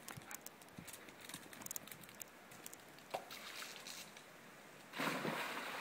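A dog splashing into a swimming pool about five seconds in: a sudden rush of water that fades over about a second. Before it, only faint scattered ticks.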